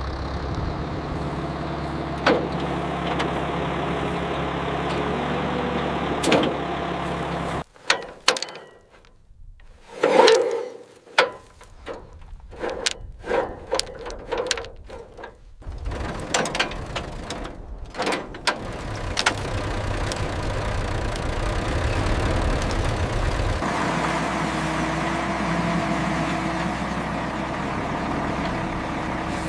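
A vehicle engine running steadily cuts off about eight seconds in. A run of sharp metallic knocks and clanks follows, then an engine runs steadily again.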